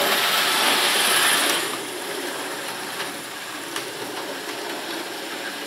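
00 gauge model Hunslet locomotive running along the track hauling a short rake of wagons: a steady whirr of the small motor and gears with wheel clatter. It is louder for the first second and a half as it passes close, then quieter, with a few faint clicks.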